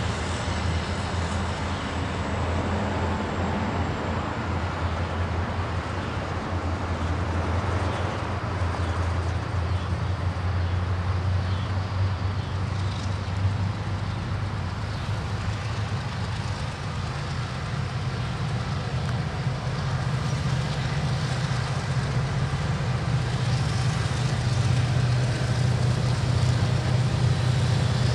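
A lashup of six diesel-electric freight locomotives, led by an EMD SD70M-2, rumbling steadily as they roll slowly toward and past the listener. The engine drone gets louder and climbs in pitch over the last several seconds, with exhaust smoke showing the units working harder.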